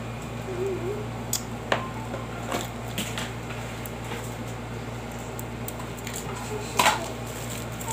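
Scattered light clicks and handling noises, with a louder clatter about seven seconds in, over a steady low hum.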